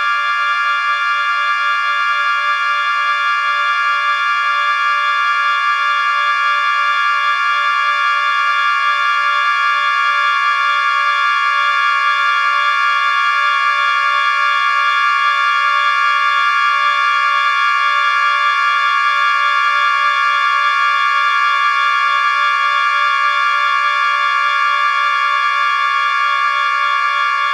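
Experimental noise music: a dense, high-pitched electronic drone of many held tones, steady and unchanging, with no bass.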